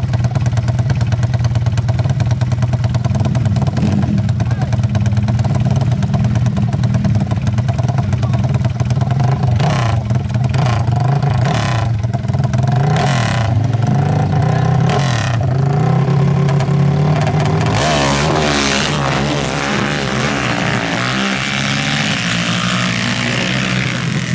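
Four-stroke 450 ATV engines idling steadily, with a few sharp throttle blips partway through. About eighteen seconds in, an engine revs up hard, rising in pitch.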